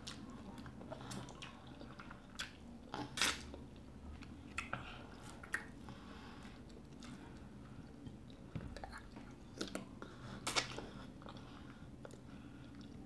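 Close-miked eating: two people chewing fufu (swallow) with nsala soup, fish and meat, with wet mouth sounds and scattered short smacks and clicks. The loudest smacks come about three seconds in and again about ten seconds in.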